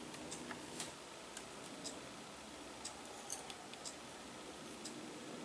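Faint, irregular light clicks and ticks, several sharp enough to stand out, over the quiet hiss of a small room.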